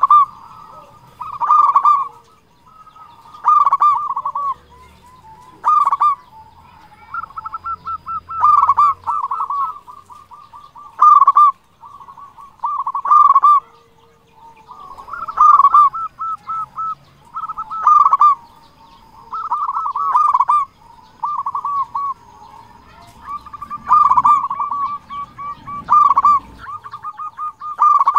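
Zebra dove (perkutut) in full song: bursts of rapid, staccato cooing notes, repeated about every two seconds.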